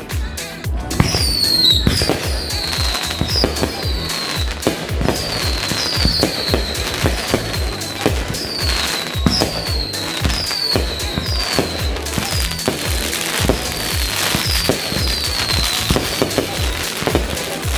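Fireworks going off in quick succession: a steady run of sharp pops and crackles, with many short whistles that each fall in pitch, one or two a second.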